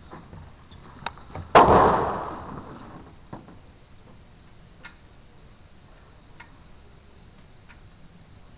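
A single 12-gauge shotgun shot about a second and a half in, loud and sharp with a long fading echo, preceded by a couple of small clicks and followed by a few faint, widely spaced clicks.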